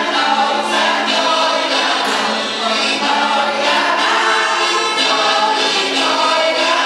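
A small group of older women's voices, with a man among them, singing a folk song together through microphones and a stage loudspeaker.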